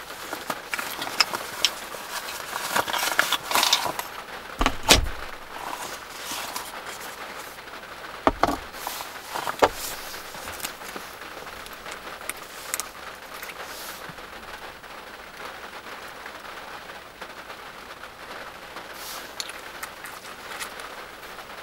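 Small objects handled on a wooden table: a few light clicks, then a sharp knock about five seconds in and two more between eight and ten seconds as a ceramic aroma stone and a small glass essential-oil bottle are set down and handled, over a steady soft hiss.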